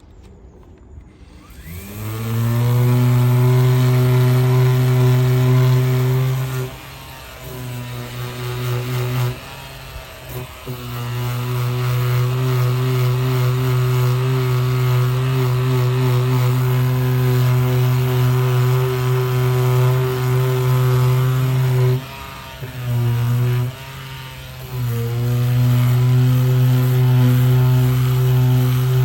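Power sander starting up about two seconds in and running with a steady hum, sanding out bumper damage with 240-grit paper. Its pitch and level dip briefly a few times as it is lifted or its load changes.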